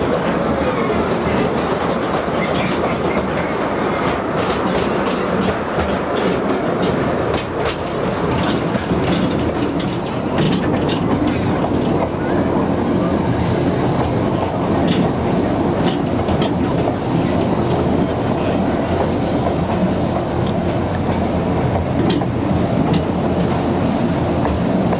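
A 2 ft gauge narrow-gauge passenger train running along the track, heard from aboard the open carriages: a steady rumble of wheels on rail with frequent sharp clicks and clatter.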